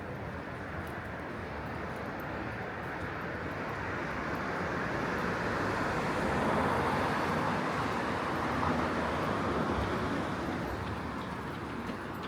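A motor vehicle passing along the street: tyre and engine noise swells to a peak about halfway through, then fades.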